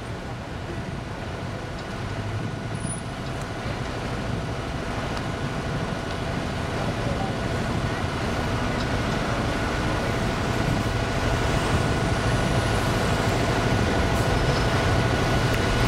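Dense city traffic noise that swells steadily louder, with a faint steady high tone held over it.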